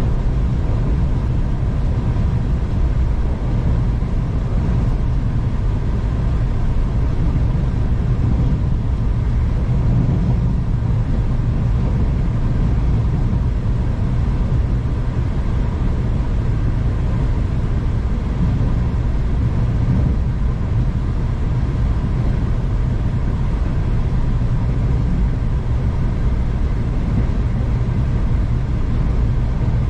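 V/Line passenger train running at steady speed, heard from inside the carriage: a steady low rumble of wheels on track with a faint constant whine above it.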